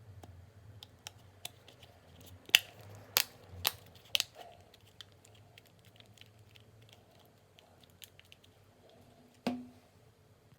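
Sharp clicks and taps of small tools and parts being handled while taking apart a Cat S60 phone: four close together in the first half, one more near the end.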